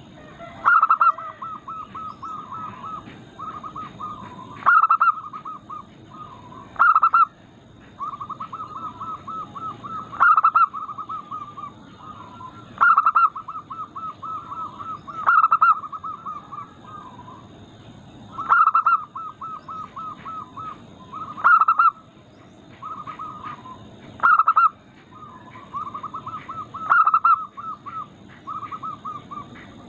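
Zebra doves (local perkutut) in full song. Repeated cooing phrases, each a loud accented note followed by a quick rolling run of softer coos, one after another every few seconds.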